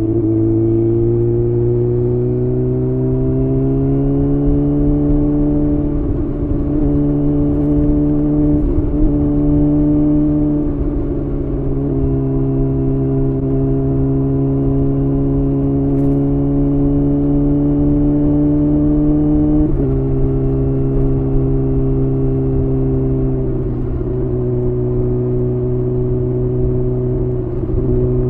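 Kawasaki Ninja ZX-6R's inline-four engine through a Leo Vince aftermarket exhaust, running under way. The note climbs over the first few seconds, holds fairly steady, and drops in pitch in three steps.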